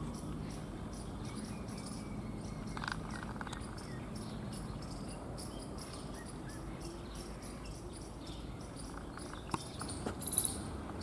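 Insects, likely crickets, chirping in a steady, evenly repeating run of short high-pitched pulses over a low background hiss. A few clicks and a brief louder, higher sound come near the end.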